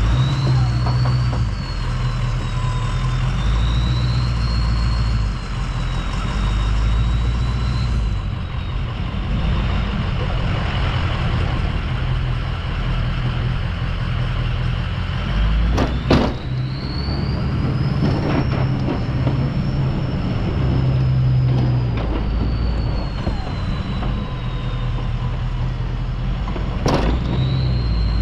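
2003 Ford F-250's 6.0-litre V8 turbo-diesel running under varying throttle while plowing snow, with a high whine that rises and falls with the engine. Two sharp knocks, one about halfway through and one near the end.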